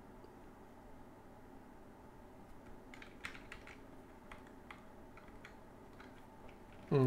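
Computer keyboard typing: a short run of soft key clicks about three to five seconds in, over faint room tone.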